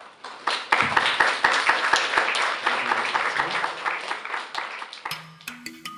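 Audience applauding after a poetry reading, loud at first and then thinning out. Near the end, music begins.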